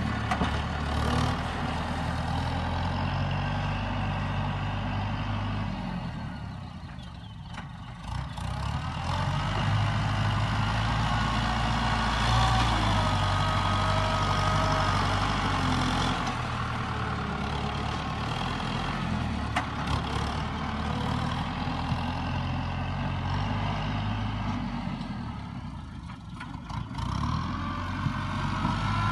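Kubota farm tractor's diesel engine running under load as it plows, a steady low engine note whose level dips twice as the tractor works away and back.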